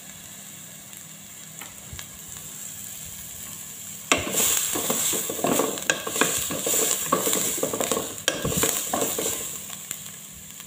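Chopped onion and green chili sizzling in oil in a pot. About four seconds in, a wooden spoon starts stirring them, adding louder quick scrapes and knocks against the pot that die down near the end.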